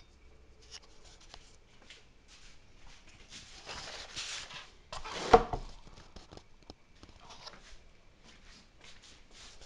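Rustling and light clicks of things being handled, with one sharp knock a little past halfway.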